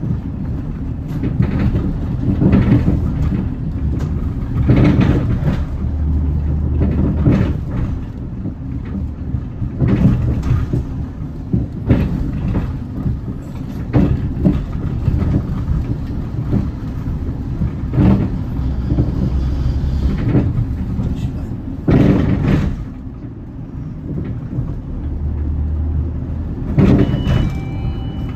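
Hyundai Green City diesel bus under way: the diesel engine runs with a steady low rumble that swells several times as it pulls, with repeated knocks and rattles over the road. A few short electronic beeps come near the end.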